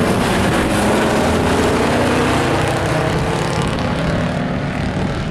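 A pack of stock pickup trucks racing, several engines running hard at once in a loud, steady drone that eases slightly near the end.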